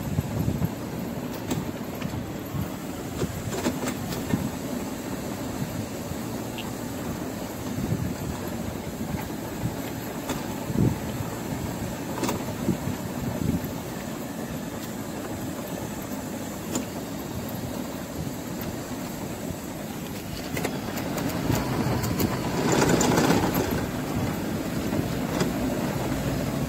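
Power wheelchair rolling over interlocking paving stones, a steady rattle of its wheels on the pavers with scattered clicks, and no grinding from the gearbox. A louder stretch near the end carries a slight wobbling noise from the front wheel, which comes from the load on the back of the chair.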